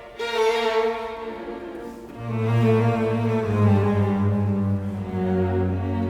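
Background music played on bowed strings: a held melody over a low sustained bass line that comes in about two seconds in.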